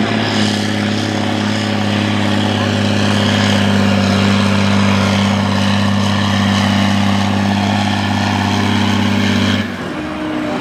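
Case IH Magnum 310 tractor's diesel engine running flat out at steady high revs under full load while it drags a tractor-pulling sled. Near the end the engine sound drops off suddenly as the pull ends.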